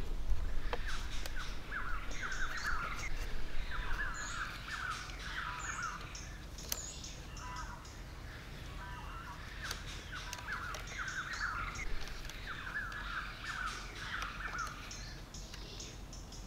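Birds calling in quick chattering bursts that repeat every few seconds, with scattered sharp clicks and taps from wooden sticks being handled and tied.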